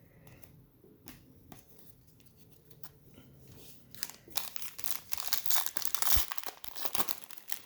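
A foil trading-card pack wrapper being torn open and crinkled, a dense crackling run that starts about halfway through, after a few light clicks of cards being handled.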